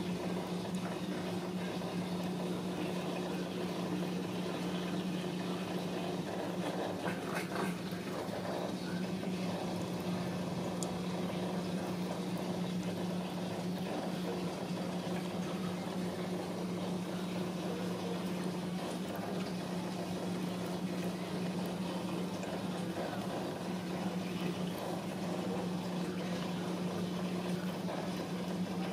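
A steady low hum with an even rushing hiss over it, unchanging in level.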